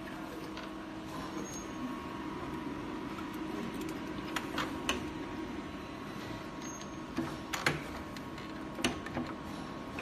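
Steady machine hum with about five sharp clicks and knocks from about halfway on, from work at a small die press cutting plastic film.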